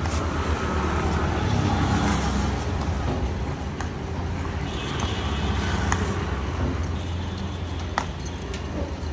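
Steady low rumble of a running motor vehicle, with a few faint clicks over it.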